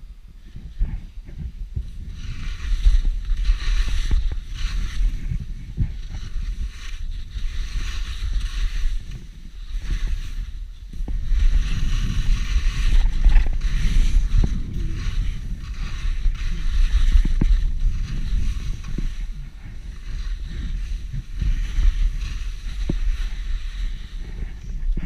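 Skis sliding and scraping over packed snow on a run of turns, the hiss swelling and fading every few seconds, with wind rumbling on the microphone.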